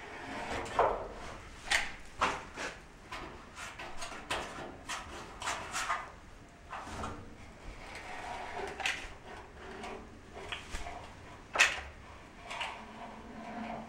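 Hand caulking gun being squeezed and worked along the base of a steel container wall: irregular sharp clicks and clacks, roughly one a second, with light scraping between them. The sharpest knock comes late on.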